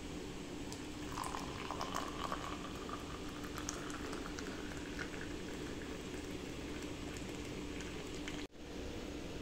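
A hot drink poured in a thin stream into a ribbed glass tumbler, splashing and fizzing as a froth builds up while the glass fills. The pour starts about a second in, its pitch rising slightly at first.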